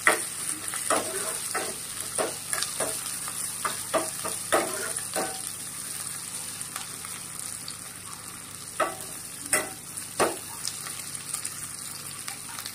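Sliced onions and curry leaves sizzling in hot oil in an aluminium kadai, being sautéed for a tadka, while a metal ladle stirs and scrapes against the pan. The clinks of the ladle come in a quick run over the first five seconds and again as a few louder strokes about nine to ten seconds in.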